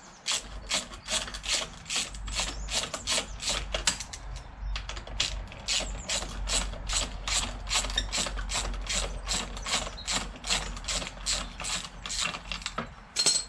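Socket ratchet clicking in quick, evenly repeated strokes, about four a second, as it winds out a bolt on a Honda VFR800's footrest hanger, with a short pause about four and a half seconds in.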